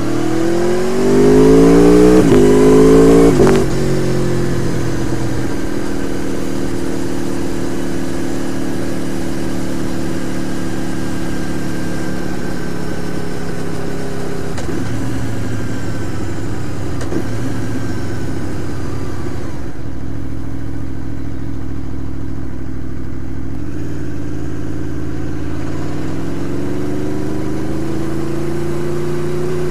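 2015 Aprilia Tuono V4R's V4 engine through its stock exhaust while riding. It revs up hard for the first few seconds, the loudest part, and the note drops suddenly about three and a half seconds in. It then cruises on a steady note, falls away as the bike slows about two-thirds through, and climbs again near the end as it accelerates.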